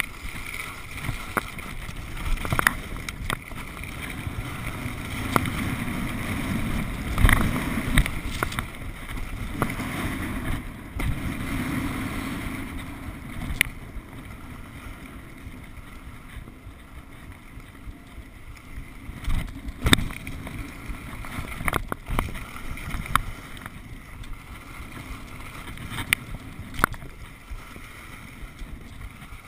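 Skis sliding and scraping over packed snow, with wind rushing over the body-worn camera's microphone and scattered sharp clicks and knocks. The rushing is loudest for several seconds a few seconds in, then eases off.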